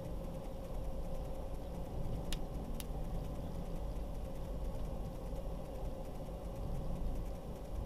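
Road and engine noise of a moving car heard from inside the cabin: a steady low rumble with a faint hum, and two light clicks a little over two seconds in.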